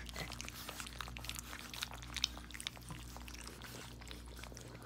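Several puppies lapping and slurping weaning gruel from a stainless steel feeding pan: a quick, irregular run of small wet licking clicks and smacks.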